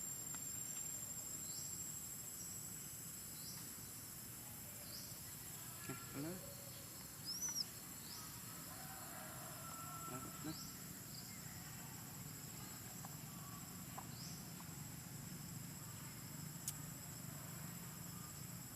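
Insects droning steadily in one high, even tone, with short rising chirps repeating every second or two over it.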